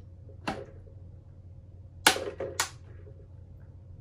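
Hard plastic parts clicking and snapping together: a knock about half a second in, then two sharp snaps about half a second apart near the middle, as the animatronic's demon head is fitted and its snap pin pushed home.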